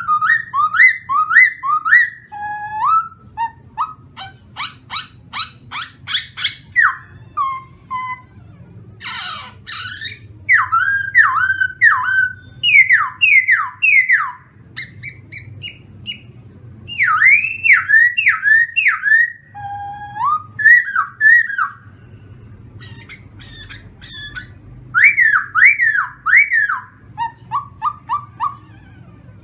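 Caged khướu mun laughingthrush singing loudly: a long run of varied whistled phrases, mostly quick falling slurred notes in groups of three or four, broken by a fast rattling series and a sweeping call.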